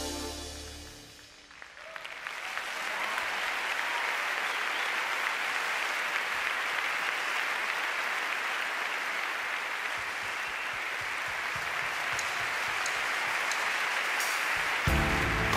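Music ends about a second in, and a large arena crowd then applauds steadily, the clapping swelling over the first couple of seconds. New music starts near the end.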